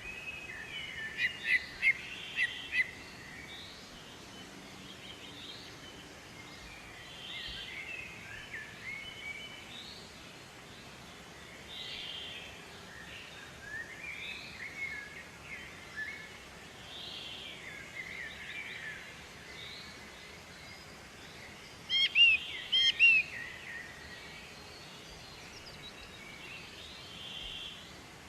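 Kincrong bird singing: repeated short chirps and trills, with louder bursts of sharp chirps about two seconds in and again about three-quarters of the way through, over a faint steady hiss.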